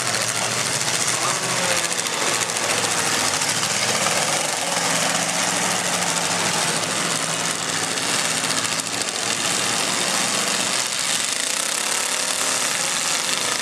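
Engines of many demolition derby cars running and revving together, a loud steady din with revs rising and falling.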